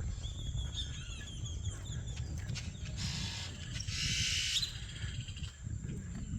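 Wild birds calling outdoors: repeated arching chirps in the first two seconds, then a hissing, buzzy burst from about three to four and a half seconds in. A steady high tone and a low rumble run underneath.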